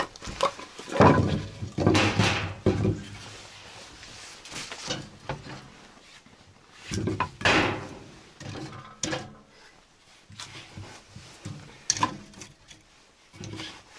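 Pieces of split firewood knocking and clattering as they are set down and stacked into a metal drum stove. The wooden clunks come in irregular clusters, loudest about a second in and again around seven seconds in, with a few single knocks later.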